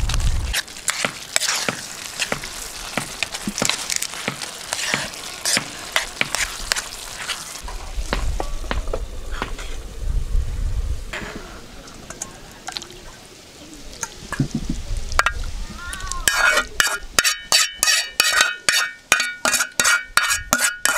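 A spoon stirs a minced-meat sauce frying in a metal pan, with sizzling and frequent clinks and scrapes against the pan. Near the end come quick, even scrapes, about three a second, with a ringing metal tone, as the sauce is scraped out of the tipped pan.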